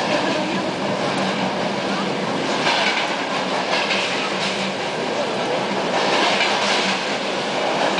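Steady running noise inside an ED9M electric suburban train at speed, with wheels clacking over rail joints and brief louder rushes as the wagons of a freight train pass close alongside.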